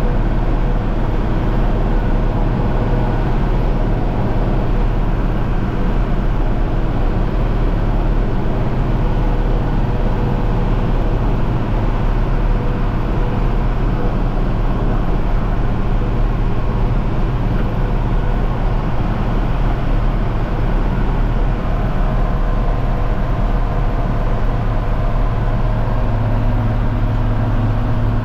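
John Deere 4230 tractor's six-cylinder diesel engine running steadily under load while pulling a round baler through the hay.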